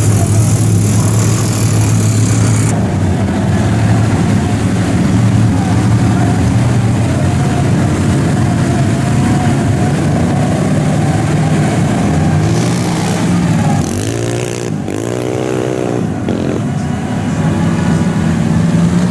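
Vehicle engine running with a steady low drone, then revving up and down a few times about two-thirds of the way through.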